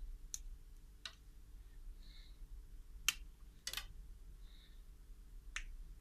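Small pliers working a thin steel wire, bending a small kink into it: a handful of faint, short clicks at irregular intervals.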